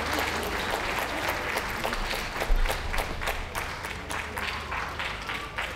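Audience applauding with dense clapping, dying down near the end.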